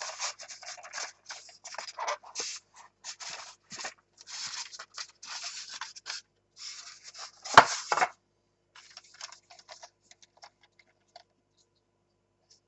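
Packaging being handled while model trains are unboxed: a run of scraping and rustling, with a sharp knock about seven and a half seconds in. After that come a few light clicks that die away by about eleven seconds.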